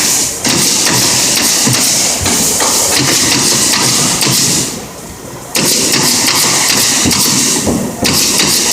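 Pneumatic stapler firing into wood, a run of short knocks, under a loud steady air hiss that cuts out for about a second twice.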